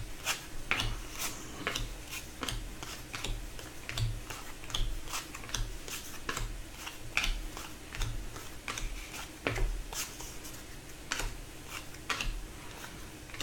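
Trading cards being handled and laid down, giving soft, irregular clicks and taps, a few a second.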